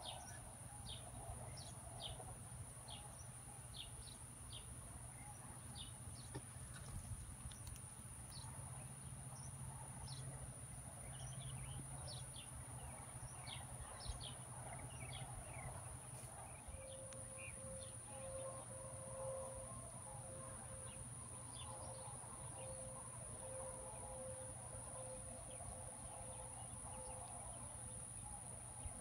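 Outdoor wetland ambience: many short, high bird chirps and a steady high-pitched insect drone over a low hum. About halfway through, a faint pulsing low tone joins in.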